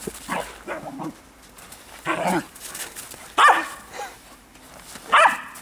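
Dog barking in short barks: softer ones near the start, then three loud barks about two, three and a half and five seconds in, the middle one the loudest.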